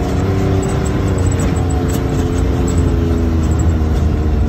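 Side-by-side UTV engine running at a fairly steady speed while driving over a dirt trail, with a constant low rumble of tyre and trail noise under the engine.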